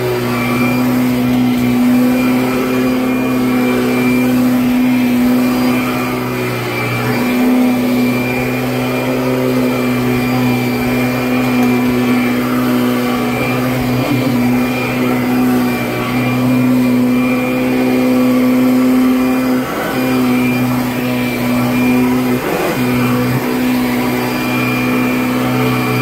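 Kirby Avalir upright vacuum cleaner running on carpet: a loud, steady motor-and-fan hum with a thin high whine over it, broken briefly a few times near the middle and toward the end by short dips and knocks as the machine is pushed and pulled.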